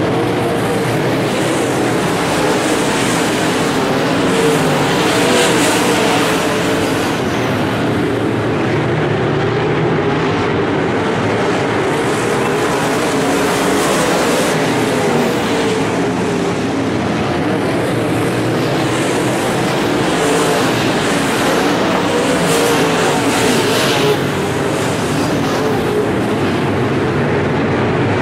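A field of dirt-track modified race cars running laps, their V8 engines at racing speed with pitch rising and falling as cars come past. Cars pass close and loudest about five seconds in and again a few seconds before the end.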